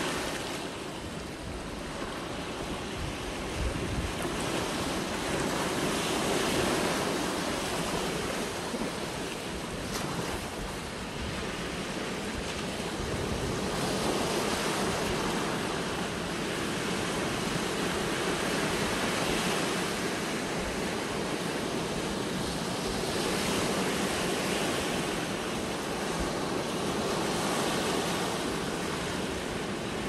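Small sea waves breaking and washing up a sandy beach and around low rocks, the surf swelling and easing every several seconds.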